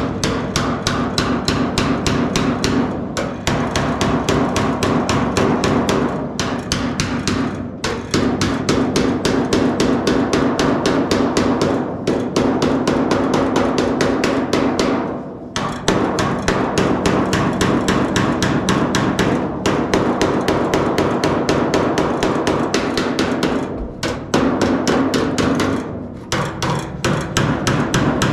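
Aluminium hammer beating the edge of a sheet-steel repair panel, fast steady blows with short breaks every few seconds, the sheet ringing under each blow. The blows are bending the panel's top edge over so that it turns round the corner.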